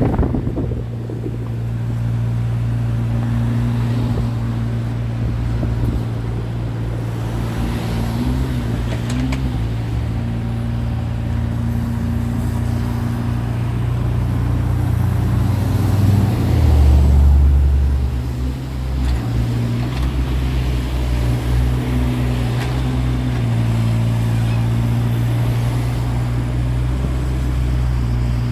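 Mini excavator's engine running steadily, with a deeper, louder surge about seventeen seconds in.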